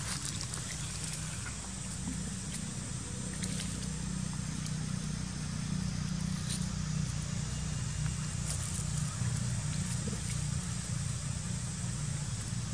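A steady low mechanical hum, with a few faint clicks scattered over it.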